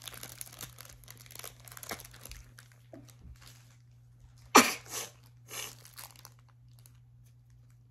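Crinkling of a foil Pokémon trading-card booster pack wrapper being handled and torn open. There is one loud sharp crunch about halfway through and a couple of smaller rustles after it.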